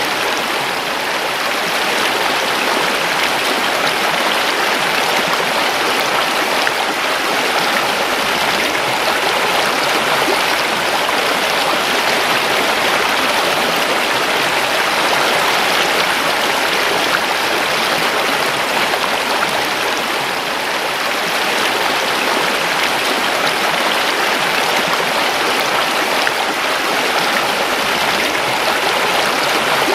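A river's water rushing and babbling over rocks, a steady, even flow.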